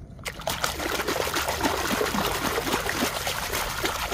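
Running water splashing and trickling over a toy vehicle as it is rinsed clean, with many small gurgling drips. It starts suddenly just after the beginning.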